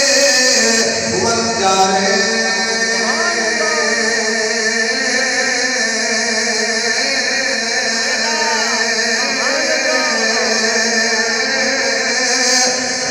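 A man's voice chanting in long, melodic held notes that glide between pitches: a sung recitation rather than spoken preaching.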